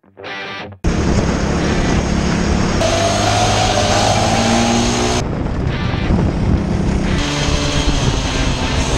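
Go-kart engines running at racing speed, heard from an onboard camera. The engine note climbs about three seconds in, and the sound changes abruptly twice where shots are cut together.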